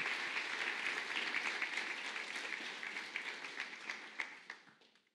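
Audience applauding, a dense clapping of many hands that dies away near the end.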